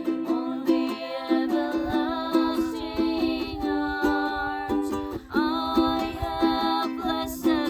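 A hymn sung by voices to a strummed string accompaniment, with regular chord strokes several times a second under the melody.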